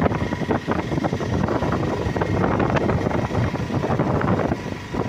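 Steady road and wind noise inside a moving vehicle, with many small rattles and knocks throughout.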